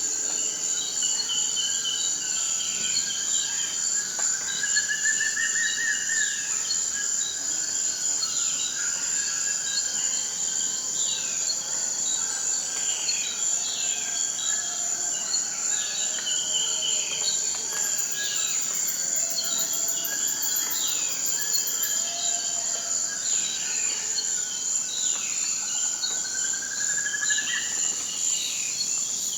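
Amazon rainforest ambience: a steady high-pitched insect drone, with many short falling bird whistles repeated over it. Twice, about five seconds in and near the end, a rising trill climbs over a second or two.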